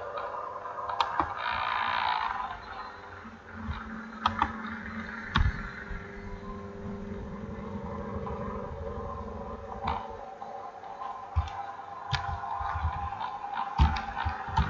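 Computer keyboard keystrokes, sparse and irregular, as text is deleted and retyped, over a steady background hum.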